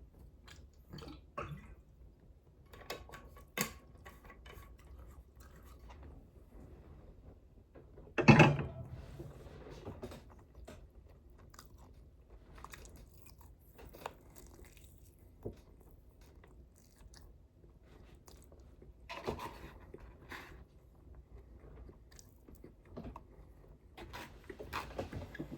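A person chewing and crunching food close to the microphone, with scattered wet mouth clicks and small crunches. There is one much louder short sound about eight seconds in and a smaller one about nineteen seconds in.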